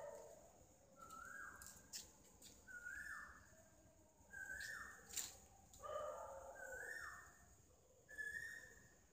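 An animal calling over and over, faint: about six short whistle-like notes, each holding a moment and then dropping in pitch, roughly every second and a half, one of them joined by a lower, fuller cry. A couple of sharp clicks fall between the calls.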